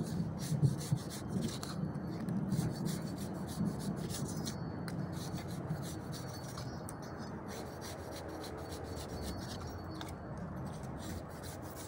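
Machete blade scraping and shaving wood from a fresh cut in an agarwood tree trunk, in repeated irregular strokes.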